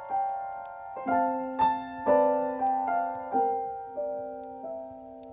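Background music: a soft piano tune, single notes and chords struck roughly every half second and dying away, growing quieter toward the end.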